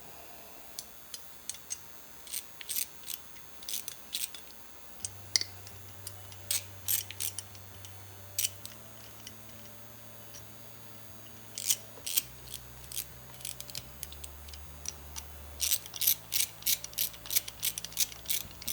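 Ratchet wrench clicking in short bursts while the float bowl bolts on a Holley carburetor are tightened down, with pauses between runs of clicks.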